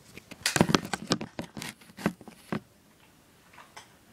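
Handling noise: a quick run of clicks, taps and rustles of small objects being handled close to the microphone, over the first two and a half seconds.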